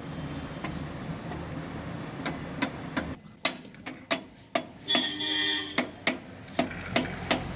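Sharp metallic clinks and taps of steel gearbox parts as the top pinion is fitted and seated in a Mahindra 275 DI tractor gearbox. A short pitched tone comes about five seconds in.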